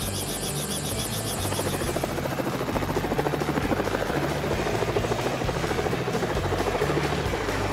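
Small crop-spraying helicopter lifting off, its rotor blades beating in a fast, even chop that grows stronger about two seconds in.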